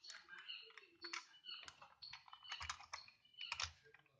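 Transforming robot van toy running on test, giving off a rapid, irregular plastic clicking and rattling.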